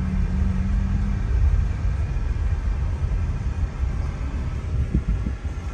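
Low, steady rumble of engine and road noise inside a moving minibus, with a brief low hum at the start and a couple of short knocks near the end.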